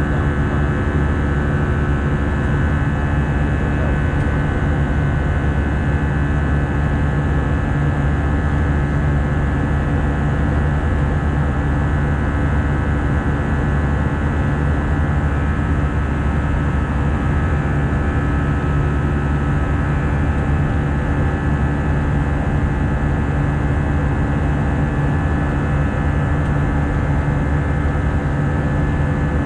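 Steady cabin noise inside an Airbus A319-111 in flight, its CFM56 jet engines and the rush of air around the fuselage making an even drone, with a few constant hum tones running through it.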